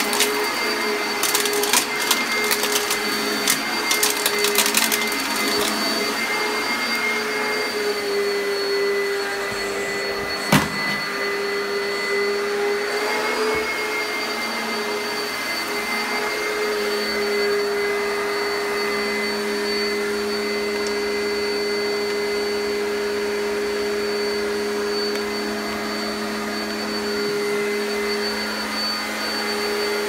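Oreck XL upright vacuum cleaner running on carpet with a steady motor whine, with a burst of rapid clicks in the first few seconds and a single sharp knock about ten seconds in.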